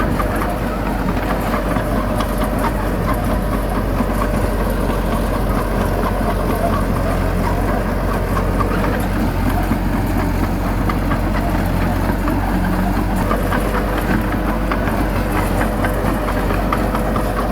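Heavy diesel engine of earth-moving machinery running steadily, with scattered clicks and rattles on top.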